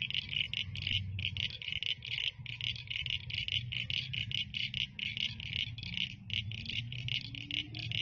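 Dusk chorus of small calling animals: many high, rhythmic chirps, about four or five a second, over a low steady rumble.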